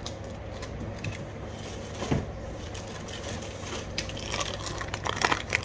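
Crinkling and crackling of plastic snack packaging being handled: many small irregular crackles, busier near the end.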